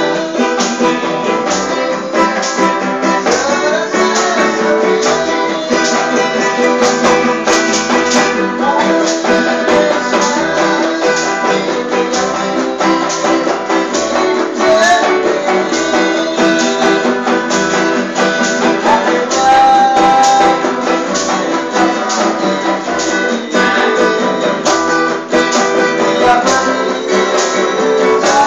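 Band music with guitars over a steady beat, instrumental with no clear singing.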